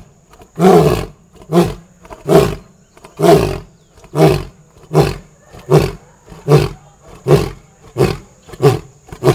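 Male lion roaring: a bout of loud, deep grunting roars, about one every 0.8 seconds, each call shorter than the one before.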